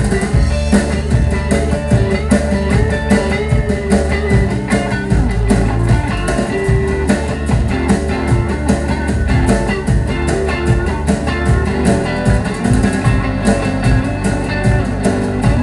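Live rock trio playing: electric guitar and bass guitar over a drum kit, with steady cymbal and drum hits keeping the beat.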